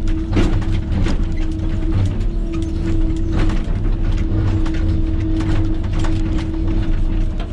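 Kobelco excavator's diesel engine running under load with a steady hum, overlaid by repeated sharp scrapes and knocks as the bucket digs through hard shale.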